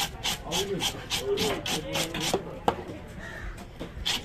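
A knife scraping the scales off a large wavy-lined grouper: quick rasping strokes, about four a second, that ease off for about a second near the end.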